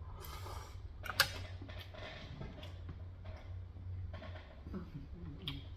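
Close-up eating sounds: chewing and wet mouth noises with scattered small clicks, and one sharper click about a second in.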